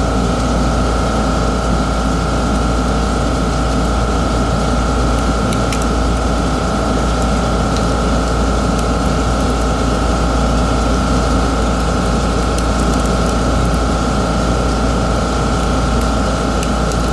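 Steady machine hum of a running motor, a deep rumble with a constant whine on top, unchanging throughout. A few faint small clicks sound from screwdriver work on the plastic mouse shell.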